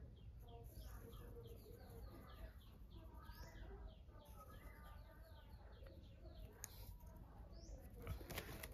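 Faint birdsong: a rapid string of short, falling chirps, about three or four a second, then softer scattered chirps, with a few sharp clicks near the end.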